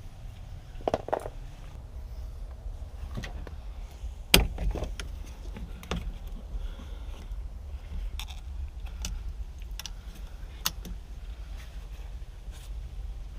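Scattered clicks and knocks of hand tools and loose parts as car interior pieces are worked on and removed, over a low steady rumble; the sharpest knock comes about four seconds in.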